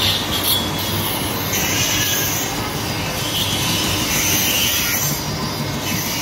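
Stone-cutting circular saw running steadily while slate is cut, with a high screech that comes and goes several times over its constant noise.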